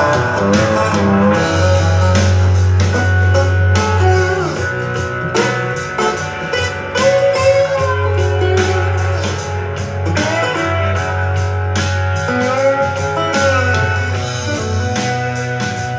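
Guitar-led music with drums and a strong, deep bass line, played back through a portable Bluetooth speaker for a sound test.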